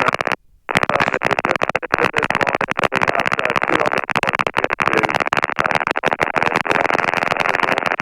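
Steady cockpit noise of a running Robinson R22 helicopter heard through the headset intercom, a dull rushing sound with no clear pitch, flickering constantly and dropping out completely for a moment about half a second in.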